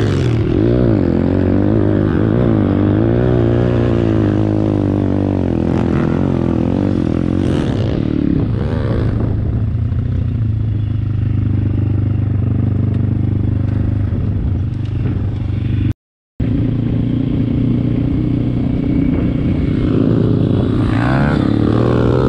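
MRF 140 RC Big pit bike's 140 cc single-cylinder four-stroke engine running under way, its pitch rising and falling as the throttle is opened and closed over rough ground. The sound cuts out completely for a split second about two-thirds of the way through.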